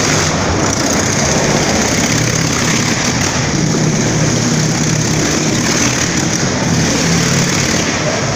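Motorcycle engines running loud and steady as the bikes circle the wooden wall of a wall-of-death drum.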